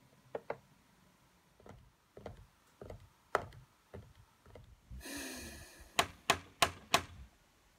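Scattered light knocks and clicks, then a short scraping rustle about five seconds in, followed by four sharp clicks in quick, even succession.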